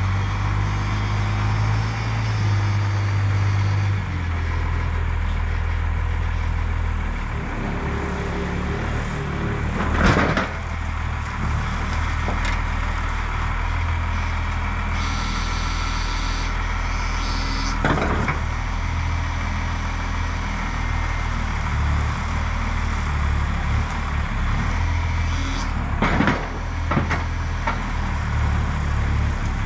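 Cummins 6BT inline-six diesel of an old Oshkosh plow truck running as the truck moves slowly forward, its engine note dropping slightly about four seconds in. A few loud sharp knocks stand out, about ten, eighteen and twenty-six seconds in, and a short hiss about fifteen seconds in.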